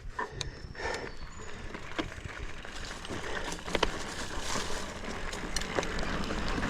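Hardtail mountain bike rolling along a dirt singletrack: a steady hiss of tyres on the trail, with scattered sharp clicks and knocks from the bike rattling over roots and bumps.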